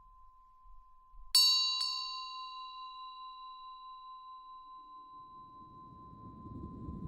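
A small high-pitched meditation bell struck twice in quick succession about a second in, ringing out and slowly fading over a steady pure tone. A low rumble swells up near the end.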